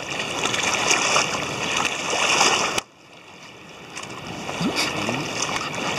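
Wind rushing over the microphone with water lapping and splashing at the bank. The noise cuts off suddenly about three seconds in, then slowly picks up again.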